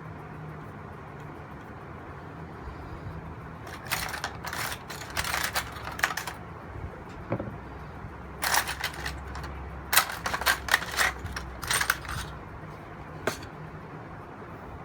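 A brush scrubbing at a graphics card's cooler in quick, scratchy strokes to clear off old thermal paste. The strokes come in two runs, from about four to six seconds and from about eight and a half to twelve seconds, with one more short stroke near the end.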